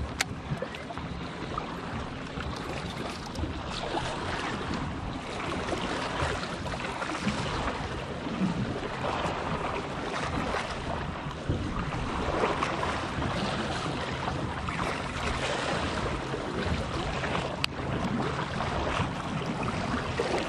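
Steady wind noise on the microphone mixed with calm sea water washing against shoreline rocks, broken by a couple of sharp clicks.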